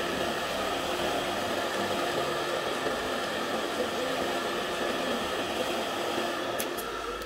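Handheld hot-air blower running steadily: a whooshing rush of air with a faint motor whine. It is heating a phone's glued back cover to soften the adhesive before prying. A couple of sharp clicks come near the end.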